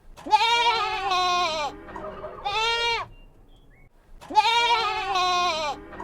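Goat bleating: a long, wavering bleat, a shorter one, then the long bleat again about four seconds in.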